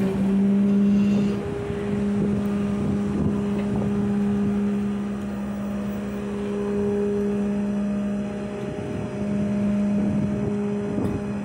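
Rollback tow truck's hydraulic bed system running as the steel deck is moved, with the diesel engine driving the pump: a steady drone that drops out briefly about a second in and again around two-thirds of the way through.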